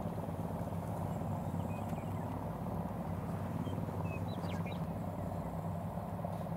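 A steady low engine hum, even and unchanging, with a few faint short high chirps around the middle.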